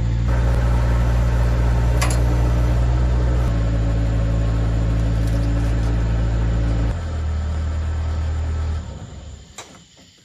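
A machine engine running steadily under load while a heavy pine log is flipped, its pitch shifting in steps about three and a half and seven seconds in, then dying away near the end. A sharp knock comes about two seconds in, and another as the engine fades.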